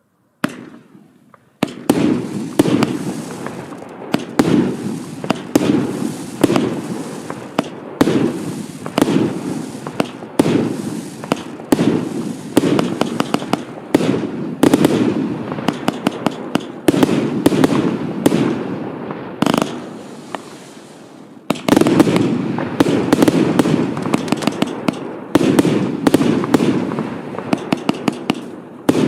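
Evolution Fireworks 'Nemesis' firework going off in a rapid barrage: a heavier bang about every second, with dense sharp cracks in between. A single shot comes first, then the barrage starts about a second and a half in. It eases into a short lull about two-thirds of the way through, then picks up again just as strongly.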